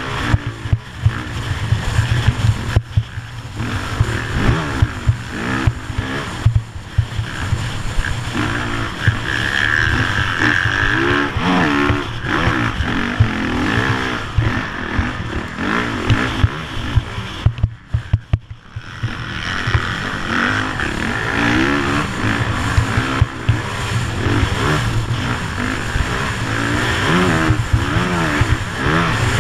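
Motocross bike engine heard from onboard at speed, revving up and down in pitch with the throttle and gear changes, under a heavy low rumble of wind on the microphone. The engine drops away for about a second a little past the halfway point, then picks up again.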